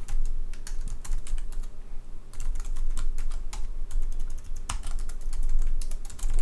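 Computer keyboard typing: runs of quick key clicks with short pauses between them, over a low steady hum.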